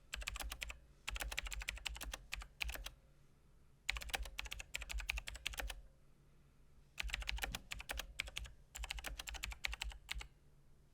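Typing on a mechanical keyboard with Kailh Blue clicky switches (Azio MGK1): fast runs of sharp, tactile key clicks in bursts, with short pauses between them.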